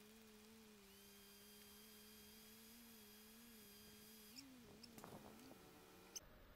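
Near silence with a faint, steady hum that wavers slightly in pitch and fades out about two-thirds of the way through, then a few faint clicks near the end.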